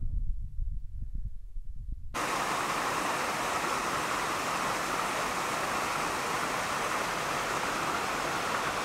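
A low rumble of wind on the microphone, then an abrupt cut about two seconds in to the steady rush of a fast-flowing mountain stream.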